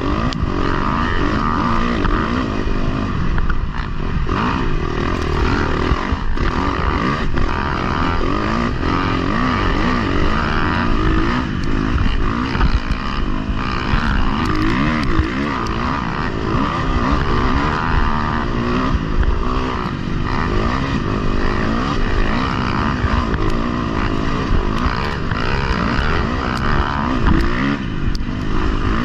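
Dirt bike engine running hard on the move, heard close from the rider's own bike, its revs rising and falling continually with the throttle as it rides through sand.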